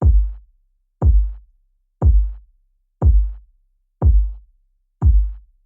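A drum-machine kick sample, processed with saturation, drive, filtering and EQ to sound dusty and degraded, hitting six times about once a second. Each hit is a deep thud that drops in pitch, with a faint click on top and a little crackle trailing after.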